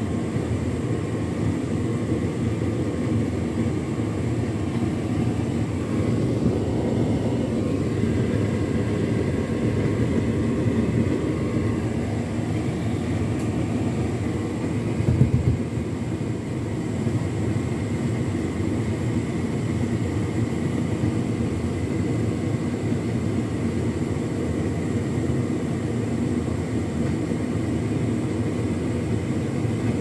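Hotpoint Ultima S-line tumble dryer running its turbo dry cycle, the drum turning and tumbling a load of clothes with a steady low whirring rumble and a faint high whine. A brief thud comes about halfway through.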